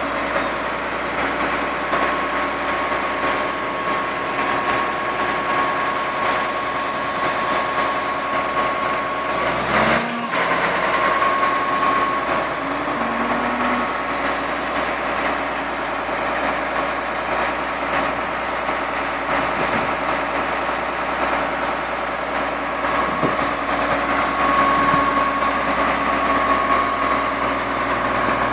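Komatsu D85EX-15E0 crawler bulldozer's diesel engine running steadily, with a steady high whine over it. There is one sharp break in the sound about ten seconds in.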